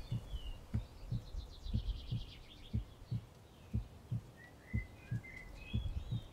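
A slow, low heartbeat-like double thud repeating about once a second, laid into the film soundtrack. Woodland birds chirp over it, with a rapid high trill about a second in.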